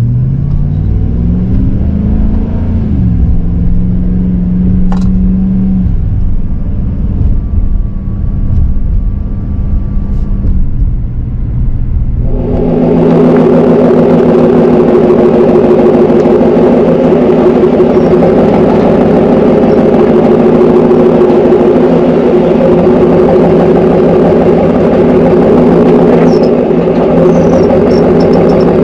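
GM 6.6 L L8T gas V8 through a Borla exhaust, heard from inside the cab as the truck pulls away from a standstill, its note rising in pitch and then settling. About halfway through the sound switches abruptly to the exhaust tip, a louder, steady exhaust note at low revs as the truck rolls slowly.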